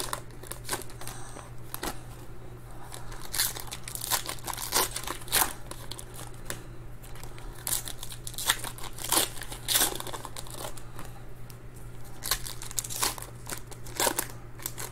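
Foil trading-card pack wrappers being torn open and crinkled by hand, giving irregular sharp crackles throughout.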